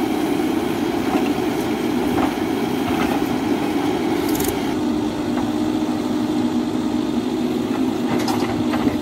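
Diesel engine of a Mahindra EarthMaster backhoe loader running steadily as it works its digging arm, with the engine note settling into a steadier hum about halfway through.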